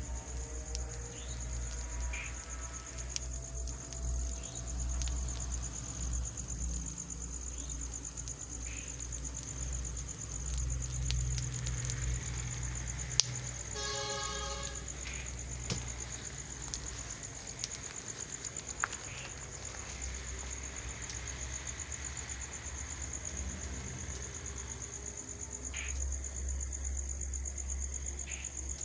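Steady high-pitched insect chirring, like crickets, over a low rumble. About halfway through there is a brief pitched tone lasting about a second, with a sharp click just before it.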